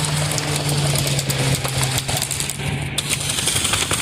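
A steady motor hum that fades out about three seconds in, with scattered faint sharp clicks over it.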